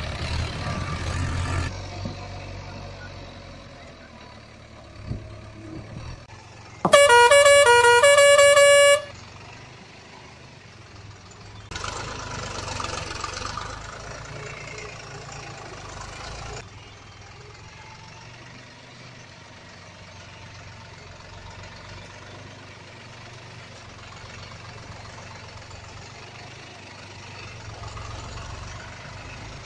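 A loud musical vehicle-horn toot, a short run of stepped notes lasting about two seconds, sounds about a quarter of the way in over faint outdoor background noise.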